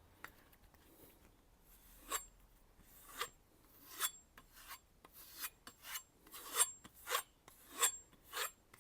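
Knife edge being stropped by hand on a soft leather strop: a run of separate rasping strokes that begin about two seconds in and come quicker toward the end. The stropping removes the root of the burr to leave a clean edge.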